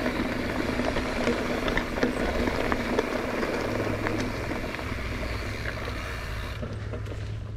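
Wind rushing over the microphone on a bicycle descent, with tyre rumble and scattered sharp clicks and rattles from the bike over rough ground. The high hiss of the wind falls away about six and a half seconds in.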